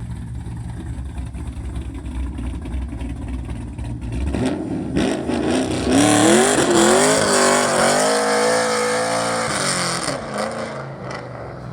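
A performance car's engine rumbling low, then about four and a half seconds in revving hard as the car pulls away. The pitch climbs, dips once at a gear change, climbs again, holds high, and eases off as it fades near the end.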